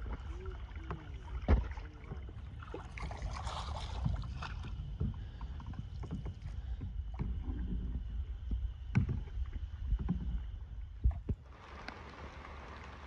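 Canoes being paddled on still water: paddle strokes with occasional sharp knocks against the canoe. Near the end this gives way to a steady hiss.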